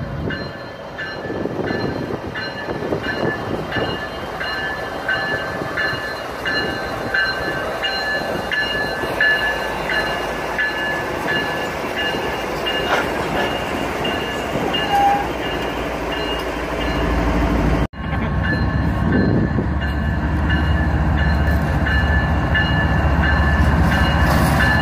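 Freight train diesel locomotives, led by a BNSF GE ET44C4, rolling slowly past with a low engine rumble that grows louder as the units come alongside. A bell rings in steady repeated strokes over the rumble. The sound drops out for a split second about 18 s in.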